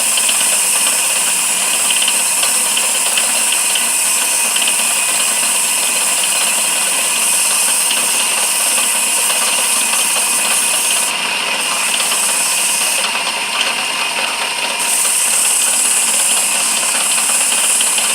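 Lathe running while a turning chisel cuts a hard, dry wooden handle blank: a steady loud hissing scrape over the motor's hum. The high hiss eases off briefly twice, as the tool's contact with the wood lightens.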